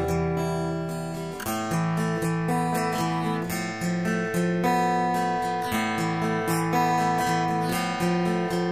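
Guitar music: plucked and strummed notes ringing and decaying in a steady rhythm, over a deep low bass note that drops out about a second and a half in.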